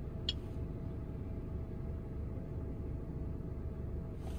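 Steady low hum inside a car cabin with a faint steady tone. One short click about a third of a second in, as a finger taps the diagnostic scanner's touchscreen.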